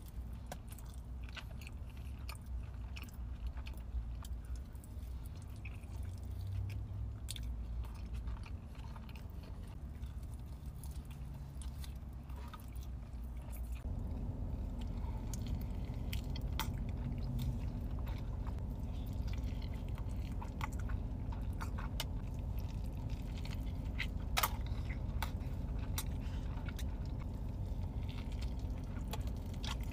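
Close-up chewing and wet mouth sounds of a person eating cheese fries, with many small clicks over a low steady hum. About halfway through the background changes, and the eating switches to big bites into a burrito and chewing.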